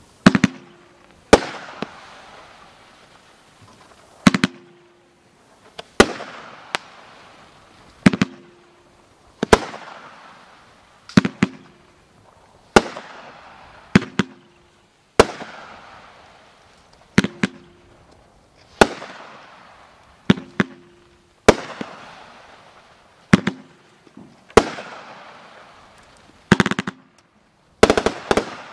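A Red Rhino multi-shot aerial firework fires shot after shot, one every one to two seconds. Each shot is a sharp bang followed by a crackling hiss that fades. A quick cluster of bangs comes near the end.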